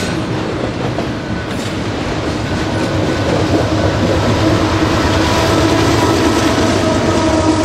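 Double-stack container freight train rolling past, its wagons clattering steadily over the rails, growing louder over the last few seconds as the rear diesel locomotive draws near.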